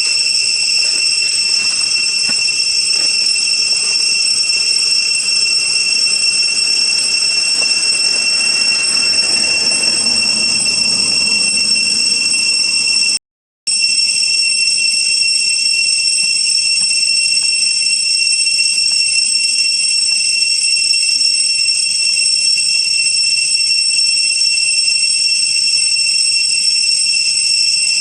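A steady, high-pitched whine with overtones above it, unchanging in pitch, broken once by a short silent gap about halfway through.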